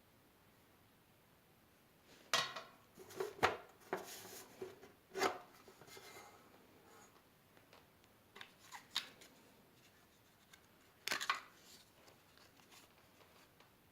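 Hand work on metal parts: scattered clicks, knocks and short scraping strokes with quiet gaps between, busiest from a couple of seconds in to about six seconds, a few light ticks around nine seconds, and a sharper cluster of knocks about eleven seconds in.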